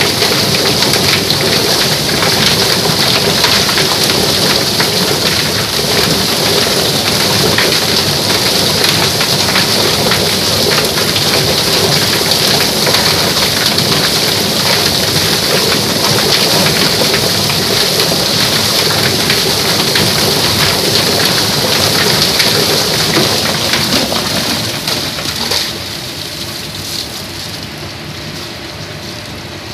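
Poultry plucker running: chickens tumbling and slapping against the rubber fingers of the spinning stainless-steel drum while a hose sprays water in, a dense steady patter of slaps and splashing. About 25 seconds in it drops quieter as the plucked birds come out.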